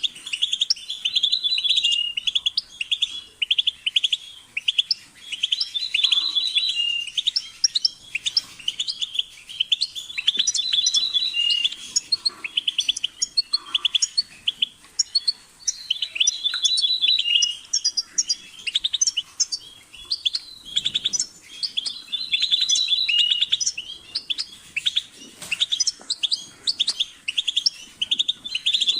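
European goldfinch singing: a long run of rapid twittering chirps and trills, with a brighter, fuller phrase coming round roughly every five to six seconds.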